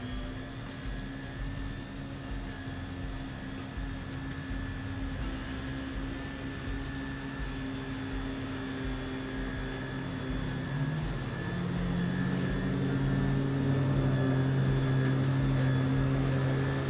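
Battery-powered electric push mower running steadily, a motor and blade hum that grows louder from about two-thirds of the way through as the mower comes closer.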